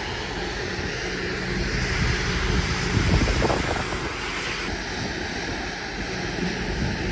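Truck engine running steadily while driving, with rumbling road noise and rattles over a rough road.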